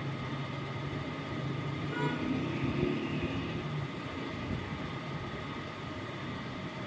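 Steady background rumble and low hum, with a short faint tone about two seconds in.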